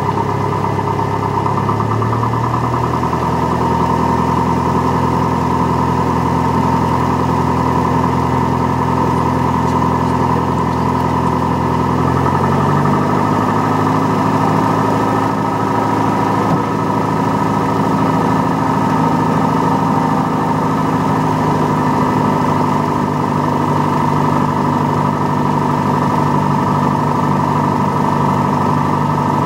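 Single-engine light aircraft's piston engine and propeller running steadily at low power. The note steps up slightly about two seconds in and again around twelve seconds in.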